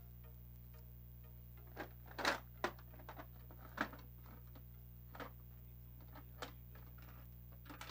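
Soft background music with a low steady hum, and a few irregular short clicks and taps scattered through it, the loudest about two seconds in.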